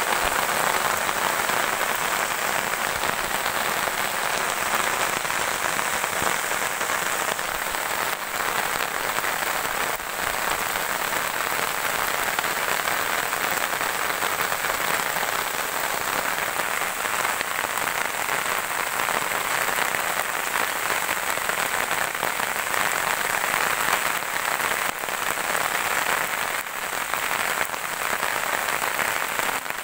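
Steady rain falling on tall grass and leaves: an even, unbroken hiss of many drops.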